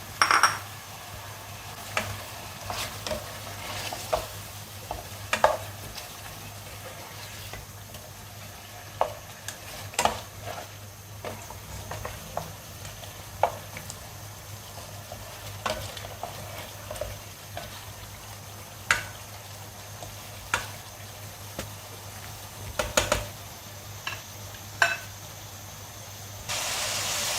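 Chicken and spice masala frying in a karahi with a steady sizzle while a spoon stirs it, knocking and scraping against the pan every second or two. The sizzle grows louder near the end.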